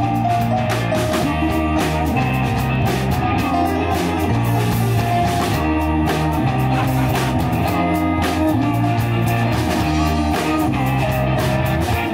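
Live rock band playing an instrumental passage: electric guitars over a drum kit, with low notes that change about every two seconds and no singing.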